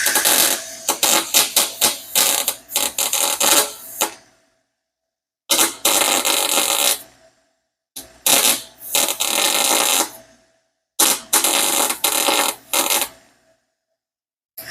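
MIG welder arc crackling in bursts: one of about four seconds, then three shorter ones of about two seconds each with brief pauses between, and another starting at the very end. This is the stitch-welding of a cracked steel exhaust header.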